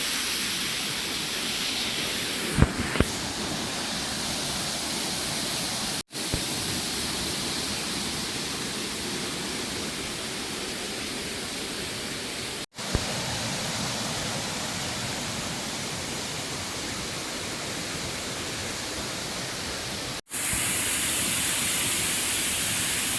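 Waterfall: a steady rush of falling water that drops out briefly three times where the recording cuts. There are a couple of sharp knocks about two and a half seconds in. It comes in louder and brighter for the last few seconds.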